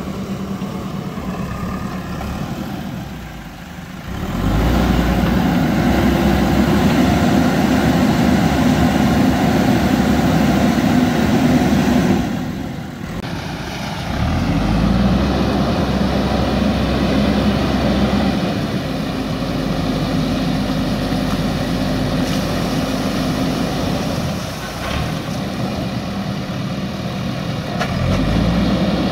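JCB backhoe loader's diesel engine working under load while the machine pushes through a shallow river, with water splashing around the bucket and wheels. The engine note drops and then climbs back up three times: about four seconds in, about fourteen seconds in, and near the end.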